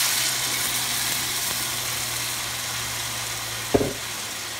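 Green tomatillo salsa poured into a hot pan of browned pork cubes, sizzling hard as it hits the pan and slowly dying down as the sauce covers the meat. A steady low hum runs underneath, and a single short knock comes near the end.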